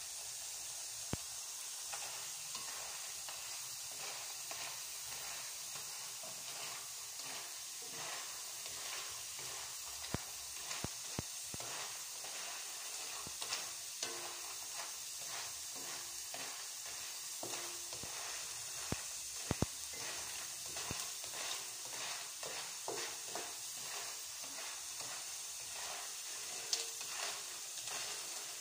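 Sliced banana chips frying in hot oil in a wok: a steady sizzle with frequent small crackling pops.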